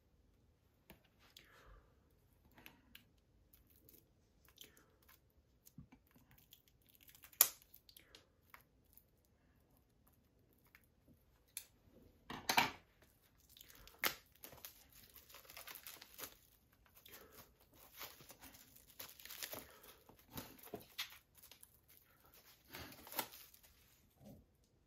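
Plastic shrink wrap being torn and peeled off a Blu-ray SteelBook case: scattered crinkling and tearing with several sharp clicks, the loudest about seven seconds in, growing into denser crinkling over the last ten seconds.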